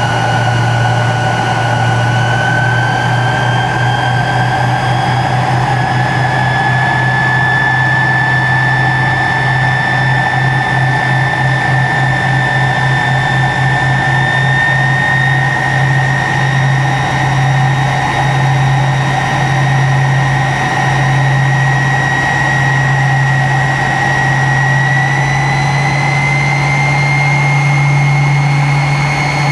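Tupolev Tu-134B-3's two Soloviev D-30 turbofans heard from inside the cabin, whining and slowly rising in pitch. Beneath the whine a low hum pulses, the pulses slowing and then fading.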